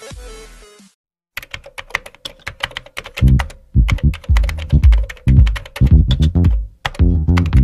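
Electronic intro music fades out within the first second. After a brief gap, rapid keyboard-typing clicks start, and about two seconds later plucked bass-guitar music joins under them and is the loudest sound.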